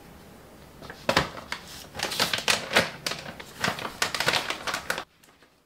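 Clear plastic bag crinkling and crackling as hands press and fold it closed around vegetables. It starts about a second in as a dense run of irregular crackles and cuts off suddenly near the end.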